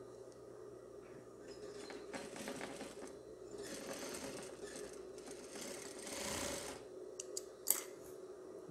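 Sewing machine running faintly in stretches, stitching a seam through the dress lining: understitching, with the seam allowances caught to the lining so it turns cleanly. A few short clicks near the end.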